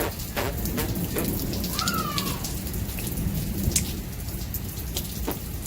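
Rain from a thunderstorm falling steadily, with individual drops ticking sharply close by over a low rumble. A short chirp-like glide is heard about two seconds in.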